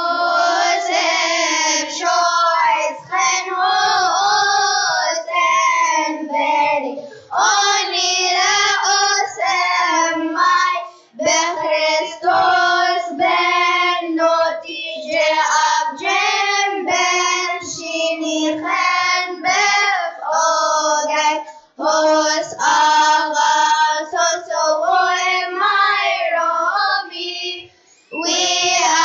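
Children's church choir singing together, in phrases with short breaks between them.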